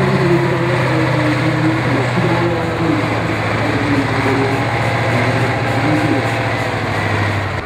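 Diesel engine of a six-wheel-drive trial truck working under load at steady revs as it crawls up a steep dirt slope, one constant low engine note.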